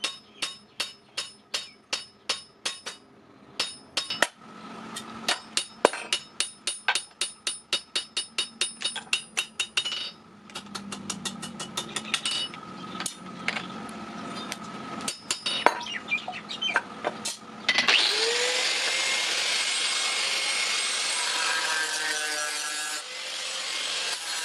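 Hammer blows on a steel clutch plate at about three a second, each ringing, then sparser, irregular strikes. About 18 seconds in, a power grinder spins up and runs steadily against the steel.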